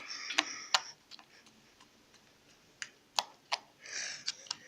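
Slime being squeezed and worked in the hands, giving about seven sharp clicking pops with soft squishing between them.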